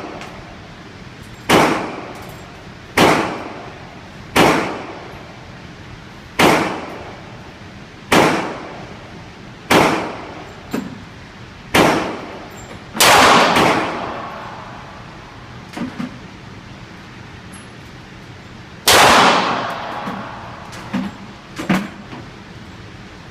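A series of gunshots, each a sharp crack with a ringing, reverberant tail, about one every one and a half to two seconds. The loudest and longest come just past the middle and about three-quarters through, with fainter pops in between.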